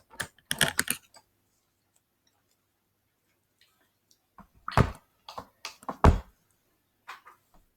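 Scattered knocks and clicks from painting tools being handled on a tabletop, with two heavier thumps about five and six seconds in.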